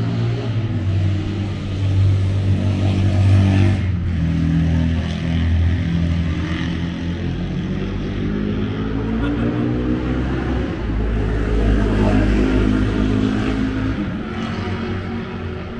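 Several vintage motorcycle engines running at once, one revving up in rising pitch about halfway through.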